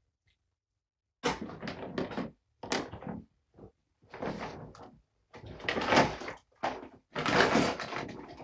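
A run of rustling and scraping handling noises, about seven bursts of half a second to a second and a half each, starting about a second in.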